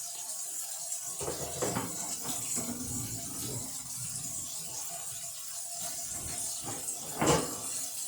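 Water running from a tap into a sink during washing, with scattered handling noises and one sharp knock about seven seconds in.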